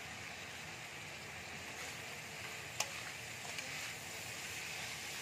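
Fish head and spice paste sizzling in oil in a wok while a metal spatula stirs the masala to fry it down, with one sharp clink of the spatula against the pan nearly three seconds in and a few fainter scrapes.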